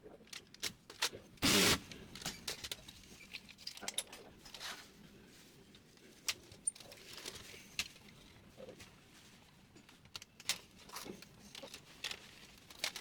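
Irregular clicks and clatter of small hard parts being handled while a laser printer is worked on, with one louder scrape-like noise about one and a half seconds in.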